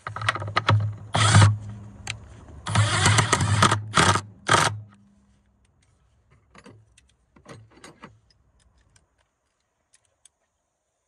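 Ratchet wrench clicking in quick, loud bursts as the bolt of the battery hold-down bracket is run down and tightened, followed by a few faint separate clicks and taps.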